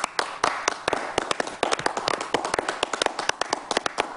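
Applause from a small group of people, individual claps sharp and distinct, several a second, over a light hubbub.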